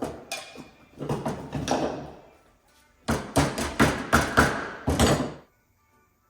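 A quick run of sharp knocks and clanks on hard objects, in two clusters: a few in the first two seconds, then about eight rapid strikes from about three seconds in, stopping near five and a half seconds.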